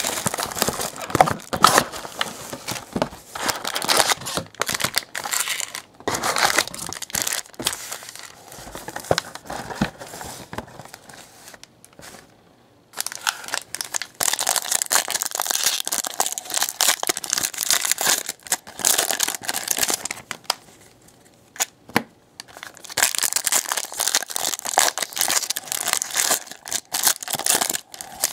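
Foil trading-card pack wrappers being torn open and crinkled by hand, in several long stretches of crackling rustle with short pauses between them and a single click about two-thirds of the way through.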